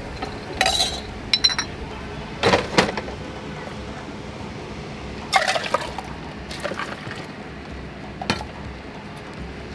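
Glassware clinking and liquid splashing as lemon soda is made up, in about six short separate bursts.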